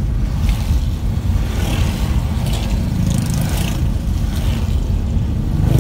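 Steady low drone of a car driving, heard from inside the cabin, with swells of hiss about a third of the way in as oncoming motorcycles and cars pass on the wet road.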